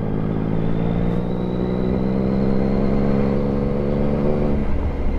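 Yamaha MT sport motorcycle engine pulling under way, its note climbing slowly and steadily, then falling away suddenly about four and a half seconds in.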